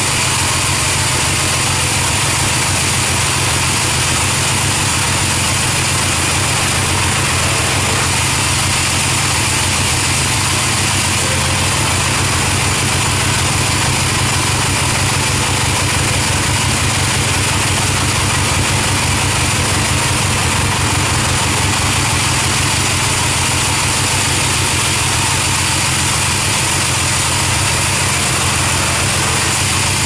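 Large band saw running steadily while resawing albasia (sengon) timber into boards. A constant machine hum runs under the hiss of the blade cutting the wood.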